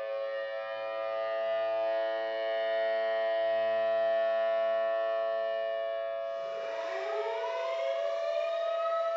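Civil defense tornado sirens, layered and processed with effects: a steady wail of several held tones at once. About six and a half seconds in, another siren starts winding up, rising in pitch over the held tones.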